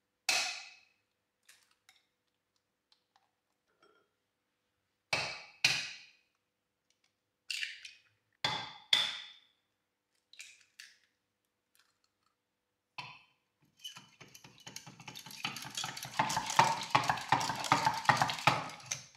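Kitchenware clinking: a few separate knocks and clinks of utensils against dishes and bowls, spaced seconds apart. For the last five seconds or so, a utensil beats rapidly against a bowl in a dense run of clicks.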